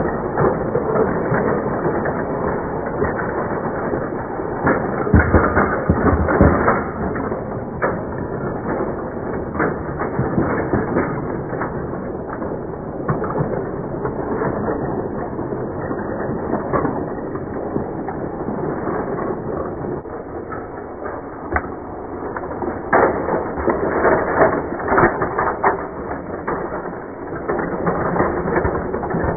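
Battery-powered toy train running on plastic track: a steady rattle of its small motor, gears and plastic wheels. Sharper plastic knocks come about five seconds in and again near the end as the toy cars bump into each other.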